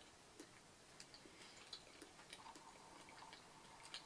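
Near silence with faint scattered clicks of a metal fork tapping and scraping in a plastic takeout clamshell.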